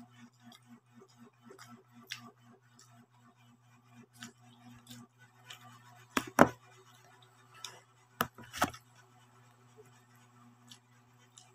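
Close-up eating sounds of a person eating rice by hand: soft chewing and mouth clicks, with a few sharper smacks or clicks about six and eight seconds in. A steady low hum and a faint quick ticking run underneath.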